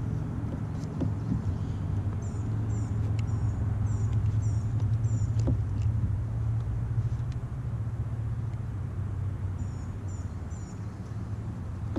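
A low steady rumble that swells a few seconds in and eases after about six seconds, with a small bird's high, short chirps repeated in quick runs, first about two seconds in and again near the end.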